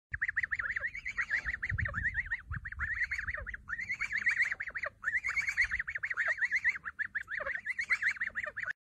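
Two young white domestic geese calling back and forth in a fast run of high, chattering peeps, several a second, with short pauses about three and a half and five seconds in; the calling stops abruptly near the end.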